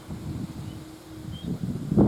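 Strong gusty wind buffeting the microphone, swelling toward the end, with two faint short high calls from little ringed plovers alarmed by nearby crows.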